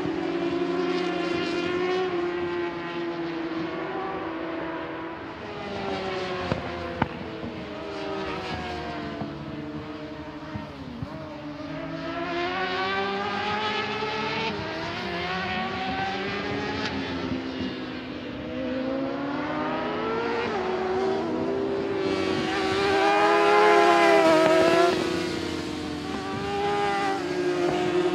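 600cc supersport racing motorcycles running hard on track, several at once, their engines repeatedly rising and falling in pitch as they pass one after another through a hairpin. The loudest pass comes near the end.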